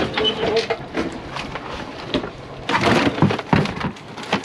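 Clattering knocks and scraping as a slatted rock lobster pot is hauled over the back of a boat onto the deck, with a louder burst of noise about three seconds in.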